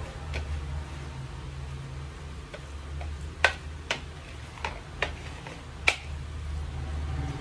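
Steel spoon stirring a thick, wet spice paste in a ceramic plate, with about five sharp clinks of the spoon against the plate in the second half.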